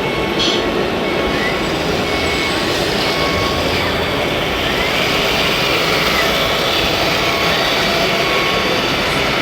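Steady din of a busy model-fair hall, with faint whines of radio-controlled models' small electric motors rising and falling now and then.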